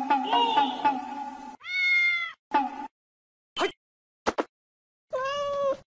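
A cat meowing several times: two longer, steady-pitched meows and a few short ones in between. They follow about a second and a half of evenly pulsing sound at the start.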